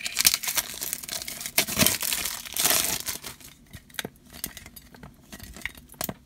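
Clear plastic shrink wrap crinkling and tearing as it is peeled off a Funko Soda collectible can, for about three seconds; after that, a few sharp clicks of fingers on the can's metal lid.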